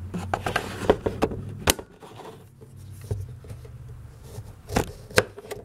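The thin 440C steel blade of a Ganzo Firebird F759M lockback knife slicing through a sheet of material in a sharpness test: a run of rustles and short ticks, with a couple of louder snaps near the end. The blade cuts through effortlessly, a sign that it is very sharp.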